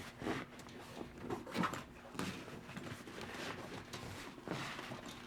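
Hands tucking the rope-beaded edge of a folding kayak's fabric spray cover under the cockpit coaming: irregular rustling and scraping with light knocks.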